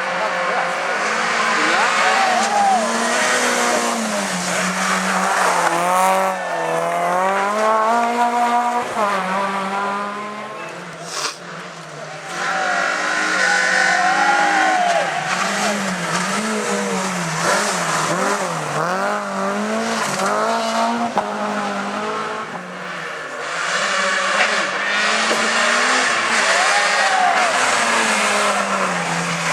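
Rally car engine revving hard, its pitch climbing and dropping again and again through quick gear changes and lifts, with a brief lull partway through.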